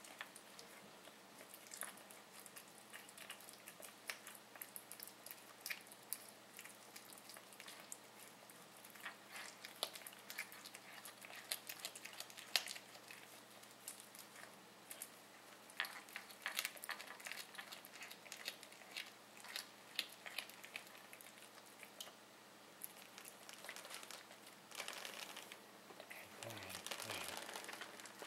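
A Siamese cat chewing a meadow vole: irregular crunches and clicks of teeth working through the carcass, coming thicker in the last few seconds.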